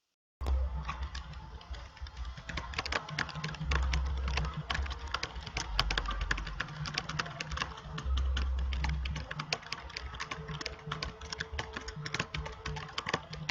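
Rapid, irregular clicking that starts abruptly, with a low hum coming and going underneath.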